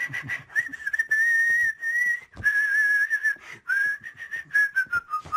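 A man whistling a slow, meandering tune in short phrases, with light clicks underneath.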